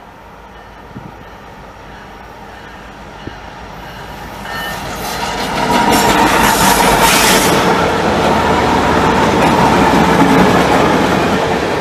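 Canadian National freight train with two diesel locomotives and covered hopper cars: the sound grows louder as the train approaches and is at full volume about six seconds in. The locomotives and cars then roll past with wheels clattering on the rails and a steady squeal over the noise.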